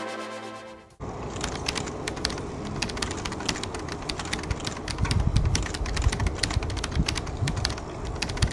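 Racing bicycles' freewheels clicking rapidly and irregularly as a bunch of road riders coasts past, with a low rumble of tyres and wind that swells about halfway through. The tail of electronic music fades out in the first second.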